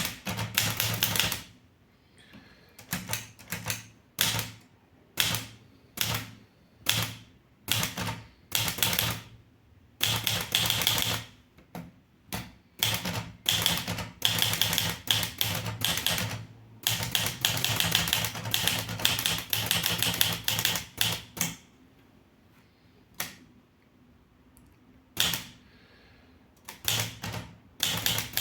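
Underwood 315 manual typewriter being typed on: quick runs of key strikes broken by short pauses, with one longer pause of about three seconds near the end.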